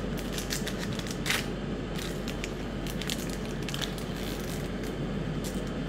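Foil booster-pack wrapper crinkling and crackling as it is torn open by hand, a dense run of sharp crackles.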